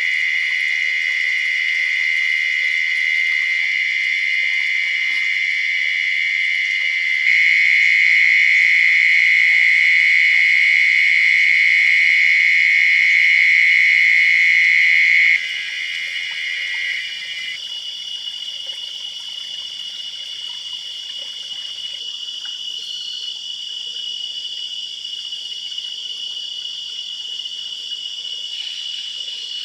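Dense night chorus of forest insects, steady high-pitched trilling in several layers. The loudest, lower-pitched caller gets louder about a quarter of the way in, then stops abruptly about halfway through, leaving the higher-pitched insects.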